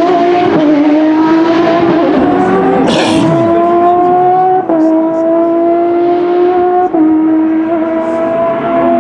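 Porsche 997 GT3 rally car's 3.6-litre flat-six running at high revs, its pitch climbing steadily in each gear and dropping at quick sequential-gearbox upshifts: two in the middle and one near the end.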